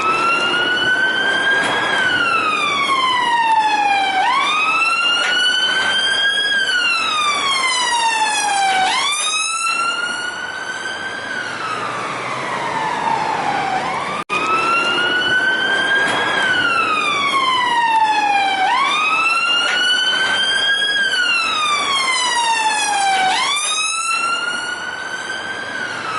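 Police car siren sounding a wail: its pitch swoops up, climbs slowly, then falls slowly, once every four to five seconds. It cuts out for a split second about fourteen seconds in, then carries on.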